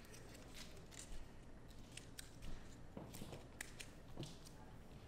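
Faint, irregular clicks and crinkles of a cat biting at a plastic cat-treat bag.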